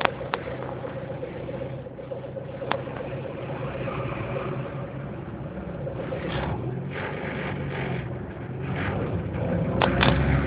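Car engine and road noise heard from inside the cabin while driving, a steady low hum with a few sharp clicks, growing louder near the end.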